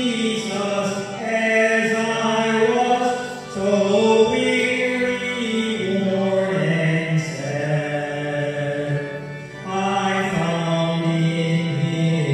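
Slow, chant-like sacred singing in held notes, in long phrases with brief breaks about three and a half and nine and a half seconds in.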